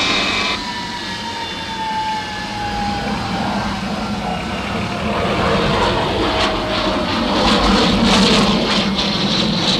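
Lockheed L-1011 TriStar jet airliner taking off: a whining engine tone sinks slowly in pitch, then a growing jet roar with a crackling edge builds toward the end.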